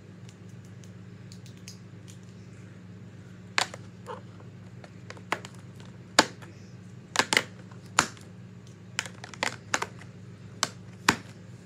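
Plastic markers clicking and clacking as they are handled and set down, about a dozen sharp knocks starting a few seconds in, over a steady low hum.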